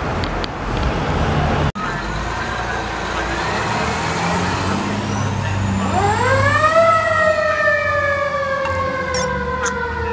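A low vehicle and street rumble, broken by an abrupt cut under two seconds in. About six seconds in an emergency-vehicle siren rises sharply, then sinks slowly in pitch as one long wail.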